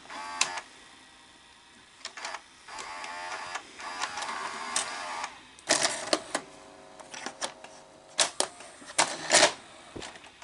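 Tape transport mechanism of a Sony SLV-R5UC Super VHS VCR cycling through loading and eject: a small motor whirs in short spells, broken by sharp mechanical clicks and clunks of gears and the cassette carriage, loudest about six seconds in and again a little past nine seconds.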